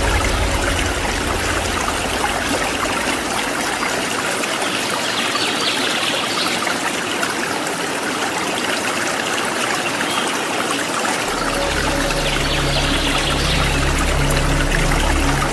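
Steady rush of running and splashing water from a waterfall stream. A low steady hum joins about eleven seconds in.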